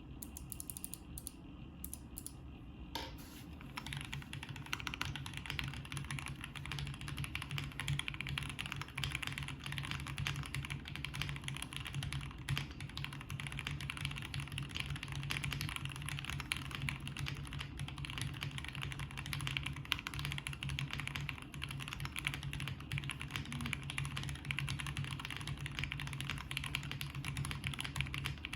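Typing on a Qwertykeys QK65 mechanical keyboard fitted with lubed and filmed Gateron Ink Black V2 linear switches on an aluminium plate, under GMK Pixel keycaps. A few scattered keystrokes come first, then fast continuous typing from about three seconds in.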